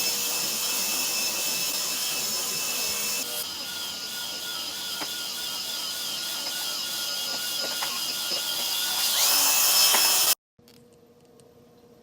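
A small electric motor running steadily with a whirring hum, growing louder about nine seconds in, then cutting off abruptly; faint room tone follows.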